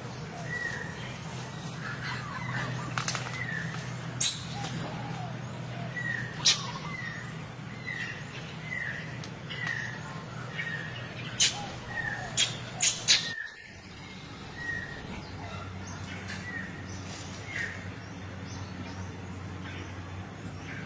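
A series of short, high chirping calls, each falling in pitch and repeated every half second to a second, over a steady low hum, with several sharp clicks or taps in between. The sound breaks off suddenly about two thirds of the way through, then the chirps resume more sparsely.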